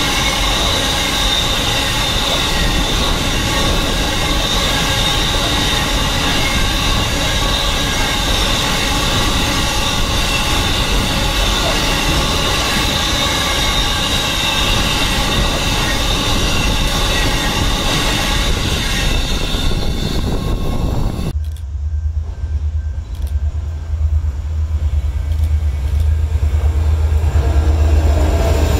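Coal train hopper wagons rolling past on the rails with a steady high-pitched wheel squeal. About 21 seconds in, the sound cuts suddenly to a deep low rumble that grows louder near the end as yellow Aurizon diesel locomotives pass close by.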